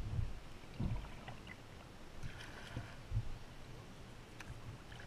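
Kayak paddling on a creek: quiet paddle splashes and water dripping, with a few soft low thumps.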